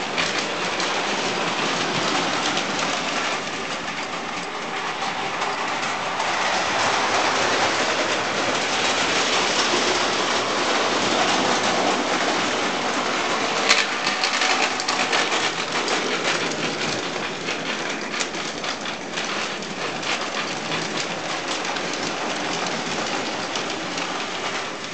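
Hornby O gauge clockwork tinplate tank locomotive and its wagons running on tinplate track: a steady, dense rattling clatter of the clockwork motor and the wheels over the rail joints. A single sharp click about halfway through.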